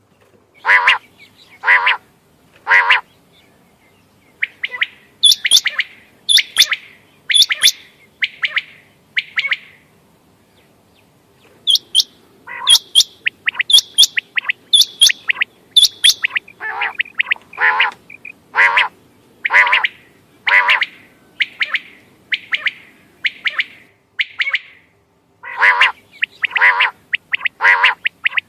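Quail (bater) calling: short sharp calls repeated about once a second in runs, with brief breaks between the runs. Some calls are higher-pitched than others.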